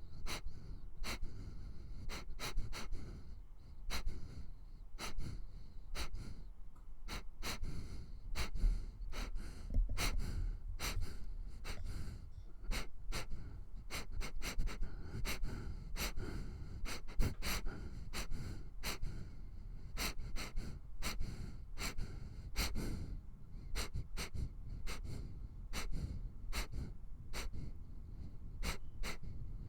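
A dog sniffing, with quick short sniffs in irregular runs, drawing in air close to the microphone.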